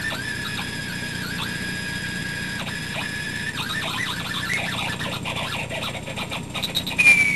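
Homemade quartz crystal microbalance's output tone through a small speaker: a steady whistle-like tone with brief downward dips in pitch. Around the middle it breaks up into warbling and crackly clicks, then near the end it jumps higher and starts falling. The pitch shifts with the mass on the crystal's surface.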